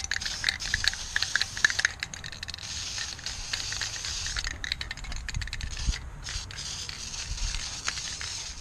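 Aerosol spray paint can spraying in a hiss broken by crackly sputters, the can close to empty.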